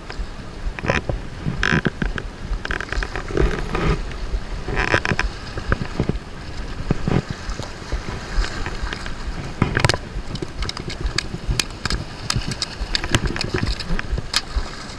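Wind buffeting the microphone over waves washing against jetty rocks, with many sharp clicks and knocks scattered through.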